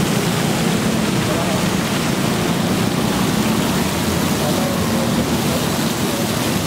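Busy city street ambience: a steady wash of traffic noise with indistinct voices of passers-by.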